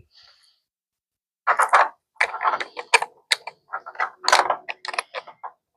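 Ratchet wrench clicking in quick, uneven runs, with small metallic knocks, as a nut is worked loose on a motorcycle's speaker mount.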